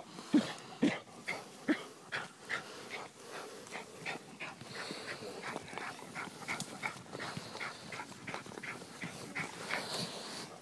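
A dog close to the microphone, digging and sniffing in dirt: a few short low whines in the first two seconds, then quick regular scratching about three times a second.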